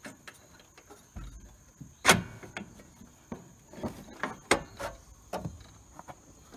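Steel mower deck being dragged and wrestled out from under a riding mower, knocking and scraping against the frame bars. There is a string of clunks, the loudest about two seconds in.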